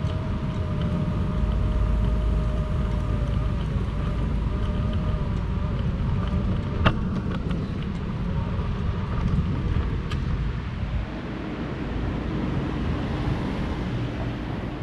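Steady low city-street rumble of traffic, with wind on the microphone. A faint wavering hum fades out about halfway, and a sharp click comes about seven seconds in, with a fainter one near ten seconds.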